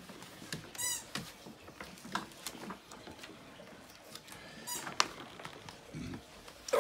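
Stickers and paper being handled: light clicks and rustles, with two short high squeaks, about a second in and near five seconds.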